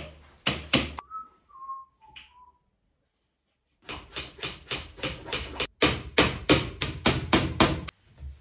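Hammer tapping the wooden keys (wedges) into the corners of a canvas stretcher frame: a few sharp knocks, a few short whistled notes, then a quick run of knocks at about four to five a second.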